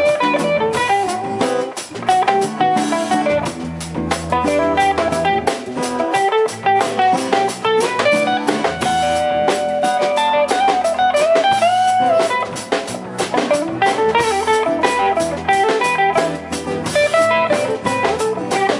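Live band with electric guitars, bass guitar and drum kit playing an instrumental passage, with no singing, and a lead line bending notes over the rhythm.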